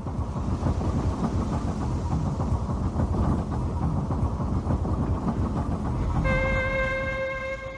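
Steam tugboat engine chugging: a low, rapid, rhythmic rumble. About six seconds in, a held musical note begins over it.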